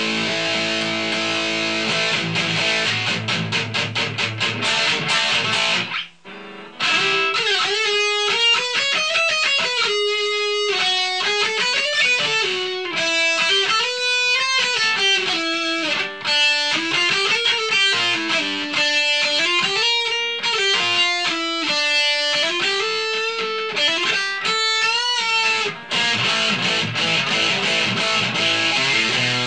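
Ibanez S470 electric guitar fitted with DiMarzio Gravity Storm pickups, played with distortion. It opens with chords, breaks off briefly about six seconds in, then plays fast single-note runs that rise and fall in repeating arpeggio-like patterns, and returns to chords near the end.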